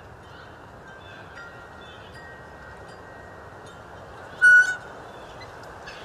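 Blue jay imitating a red-tailed hawk's scream in an outdoor field recording with steady hiss, faint high calls, and one short, loud call about four and a half seconds in.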